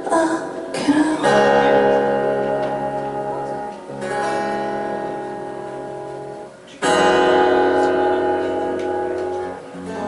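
Acoustic guitar playing slow strummed chords, each struck once and left to ring and fade for about three seconds: three chords, then a fourth right at the end. A woman's singing voice is heard briefly at the very start.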